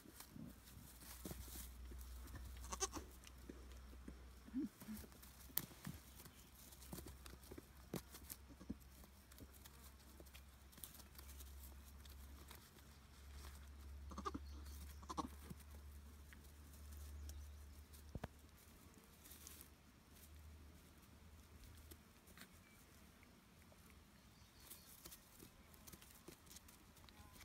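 Newborn Nigerian Dwarf goat kids bleating faintly a few times: short high cries about three seconds in and two more close together near the middle, amid light clicks and rustling in dry grass.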